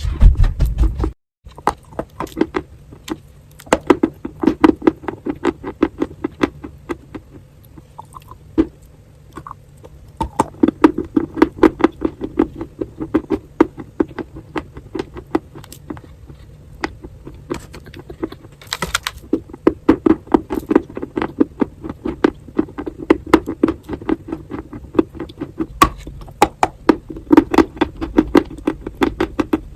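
Close-miked crunching and chewing of dry chalky clay: a dense run of crisp cracks over rhythmic chewing pulses. It breaks off briefly just over a second in.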